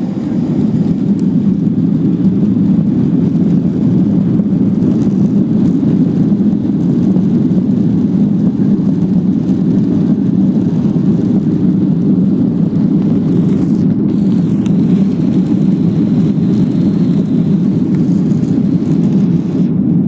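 Jet airliner's engines at takeoff power: a loud, steady roar that swells over the first second or two and then holds level.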